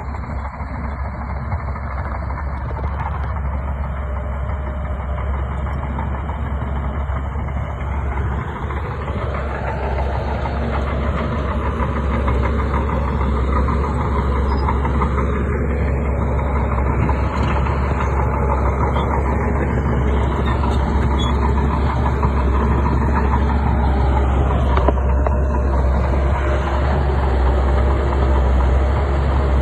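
Bulldozer's diesel engine running steadily under load with a deep rumble, its pitch swelling and easing a few times as it works.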